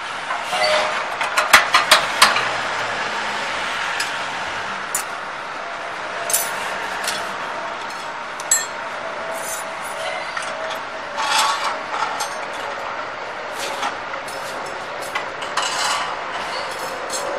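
Steel rods and metal machine parts clinking and knocking as they are handled and fitted into a chalk-making machine's frame, in scattered sharp clicks over a steady background hiss, busiest in the first two seconds.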